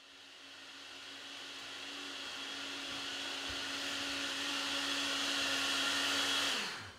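Electric blender running steadily with a motor whine, growing louder, then switched off near the end, its motor pitch falling as it spins down. It is blending fruit for a smoothie.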